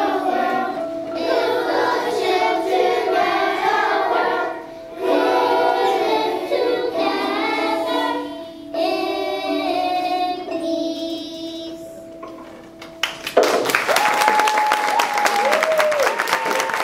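Children's choir singing with Orff xylophone and metallophone accompaniment. The song ends about 13 seconds in, and the audience bursts into applause with a couple of whoops.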